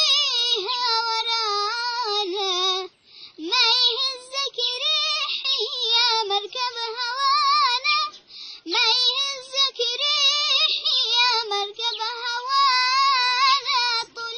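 A boy singing an Arabic song solo without accompaniment: one high voice with wavering, ornamented phrases, breaking for breath about three and eight seconds in.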